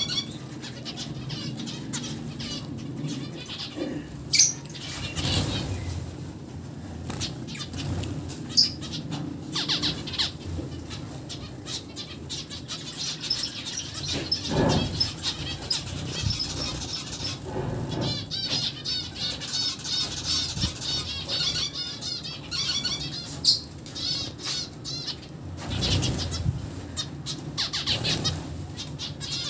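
Zebra finches chattering with quick runs of short, repeated high-pitched notes, mixed with wing flutters and sharp taps as the birds hop and flap about a pot of seed.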